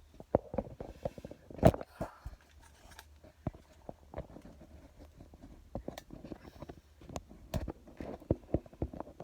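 Handling noise from a phone being adjusted on a ring light's phone holder: irregular clicks, taps and knocks close to the microphone, the sharpest about a second and a half in and another near the end.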